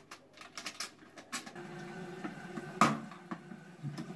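Plastic clicks and knocks from the cover and mounting parts of a concealed toilet cistern being handled and fitted into the wall opening, with one sharp, louder knock about three seconds in. A steady hum comes in about halfway.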